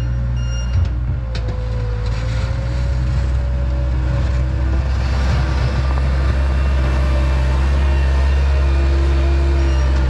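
Gehl 4625 skid steer loader's engine running steadily under load, with a wavering whine, while the machine clears snow with its bucket. Its reversing alarm beeps about twice a second and stops within the first second.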